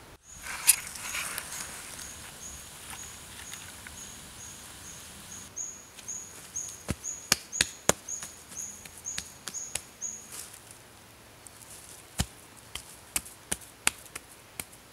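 Sharp, irregular cracks and knocks, several a second at times, from hands working at the base of a clay smelting furnace, starting about six seconds in. Under the first part, a high chirp repeats about three times a second and stops about ten seconds in.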